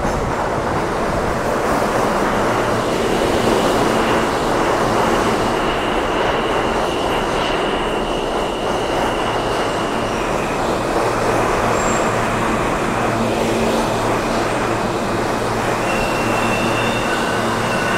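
R160 subway train pulling into an underground station: a steady rumble of wheels on rail, with a high steady whine that steps down slightly in pitch about ten seconds in and more tones joining near the end.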